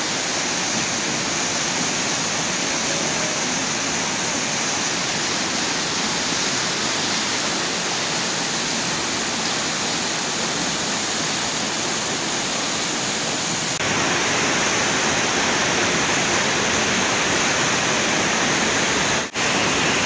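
Waterfall pouring over a rock face: a steady rush of falling water. It gets a little louder about fourteen seconds in and cuts out for a moment near the end.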